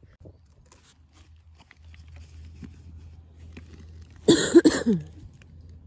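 A single short cough about four seconds in, the loudest thing here, over a quiet background of a faint low hum and small rustles.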